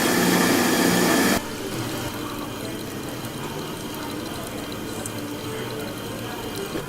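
A loud, steady mechanical noise with a few held tones cuts off abruptly about a second and a half in. It gives way to a quieter, even hiss like running water.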